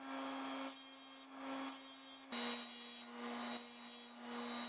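A 6-inch bench grinder runs with a steady motor hum while a broadhead blade, held in a clamp-style holder, is drawn across its spinning paper sharpening wheel. This gives a swell of rasping grinding noise about once a second as each stroke is made.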